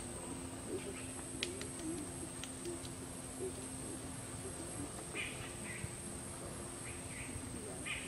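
A fulvous-breasted woodpecker tapping its bill on a branch: a handful of sharp single taps, spaced irregularly, in the first half. Short bird calls come in a few times in the second half.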